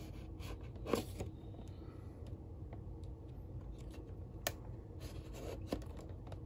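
Cardboard action-figure box being opened carefully by hand: soft scraping and scattered sharp clicks. The loudest clicks come about a second in and near four and a half seconds.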